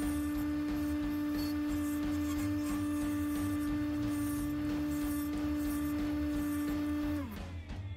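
Woodturning lathe's motor running with a steady whine. About seven seconds in it is switched off, and the pitch falls as it spins down.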